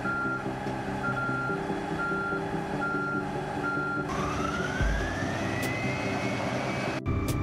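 Komatsu WA1200-6 mining wheel loader's V16 diesel engine running with a back-up alarm beeping about every three-quarters of a second. About four seconds in the beeping stops and a rising whine climbs as the engine revs up, black smoke coming from the stack, until the sound cuts off abruptly near the end.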